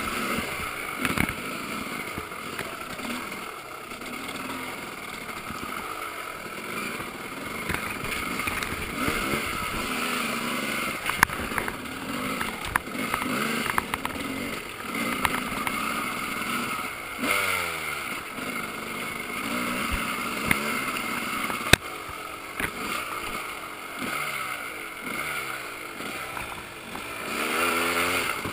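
Off-road dirt bike engine revving up and down at low trail speed, with the throttle opened and closed again and again. A few sharp knocks cut in now and then, the loudest about two thirds of the way through.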